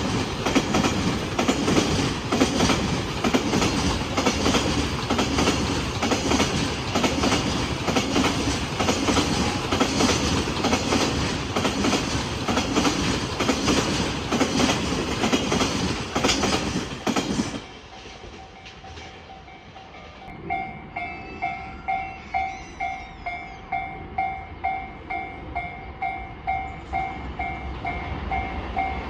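Freight train running over rail joints with a loud rhythmic clatter of wheels, which cuts off suddenly about two-thirds of the way through. A few seconds later a railway level-crossing alarm starts, a ringing ding repeated about one and a half times a second.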